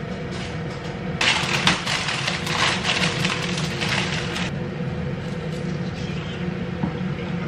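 Crinkly plastic food packaging being handled and unwrapped for a few seconds, then a knife cutting on a wooden cutting board with light, scattered taps. A steady low hum runs underneath.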